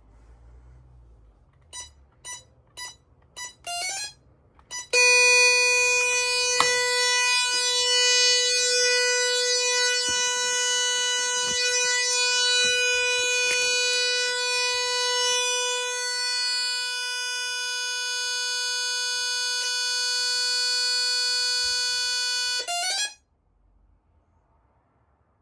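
Gardtec 595/600 intruder alarm system beeping five times in short pips. About five seconds in it starts a steady, shrill alarm tone that holds for roughly eighteen seconds, then cuts off suddenly after a quick flurry of beeps.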